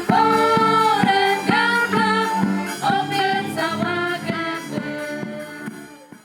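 Background music with singing and a steady beat, fading out and ending near the end.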